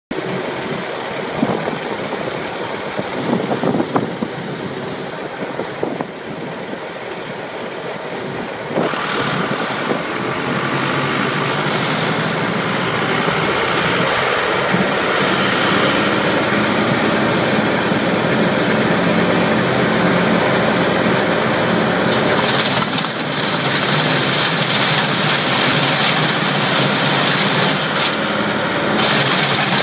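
A Bandit Model 100 wood chipper's Cummins 4B diesel engine, running at a low idle with a few clunks, then brought up suddenly to a steady high speed about nine seconds in. From about 22 seconds the chipper is chipping wood, a harsher, hissier noise over the engine.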